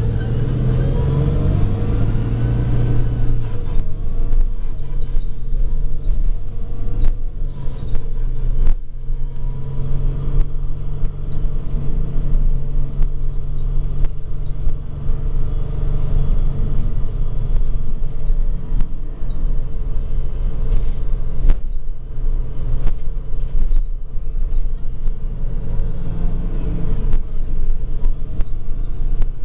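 MAN NG313 articulated bus's CNG engine and Voith automatic gearbox running under way, heard from inside the passenger cabin as a steady low rumble. Faint whining tones rise and fall in pitch during the first few seconds.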